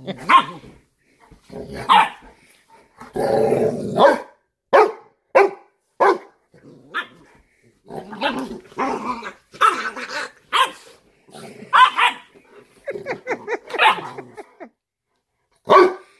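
Dogs barking and yelping in short, sharp bursts during rough play-fighting, with a longer growl about three seconds in.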